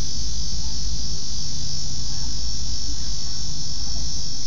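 Steady high-pitched chorus of crickets, with a low rumble beneath it.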